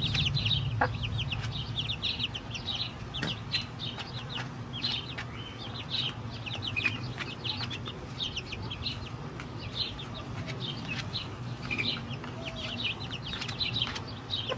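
A group of chickens clucking and peeping while they feed, many short high calls in quick succession, over a steady low hum.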